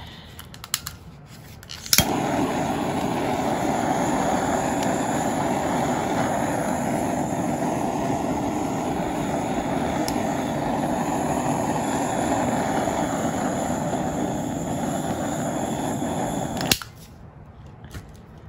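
Handheld butane torch clicking alight about two seconds in, then running with a steady hissing flame for about fifteen seconds before it clicks off.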